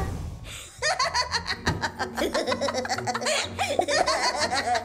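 The hiss of a cartoon prank gift box's soot puff fading out, then hearty laughter from about a second in, over light background music.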